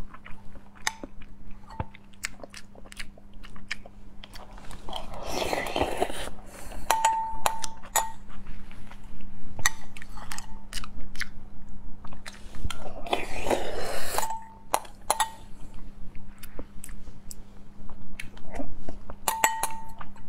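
Metal spoon clinking and scraping against a glass bowl as it stirs a wet, sticky mix of natto, soy-marinated crab, salmon roe and raw egg yolk. The bowl rings briefly after each tap, and two longer wet stirring noises come about five and thirteen seconds in.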